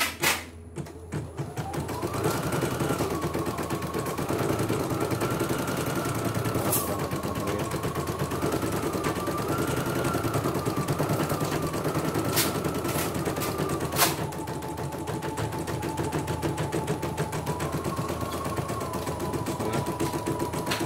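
CNY portable embroidery machine stitching at speed on a test run after repair: a fast, even rattle of the needle mechanism over a motor whine. The whine wavers in pitch and settles lower about two-thirds of the way through. The run starts up about two seconds in, and a few sharp clicks come through.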